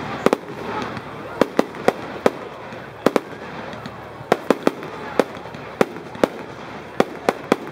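Fireworks firing shot after shot from one launch point: a string of sharp bangs at irregular spacing, roughly two a second, as each shell bursts in the air.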